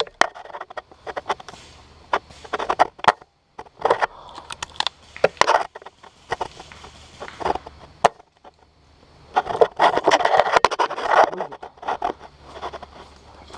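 Footsteps and body movement through brush and dry leaves: irregular crunching and scraping rustles, with scattered sharp clicks and snaps.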